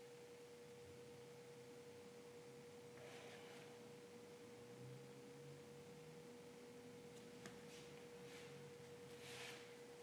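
Near silence: room tone with a faint steady mid-pitched hum and a couple of faint soft scrapes.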